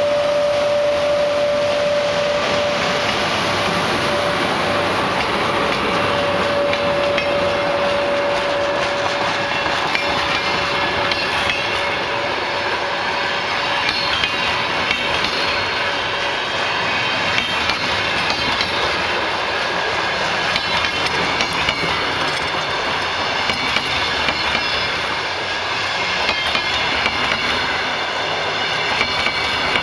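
Sr1 electric locomotive hauling a passenger train past: a steady whine fades out about nine seconds in, then the coaches roll by with a rushing noise and irregular clicking of wheels over the rail joints.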